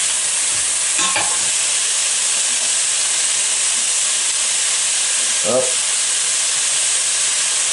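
Onions and carrots with browned beef sizzling steadily in hot oil in a stainless steel pot, with a brief click about a second in.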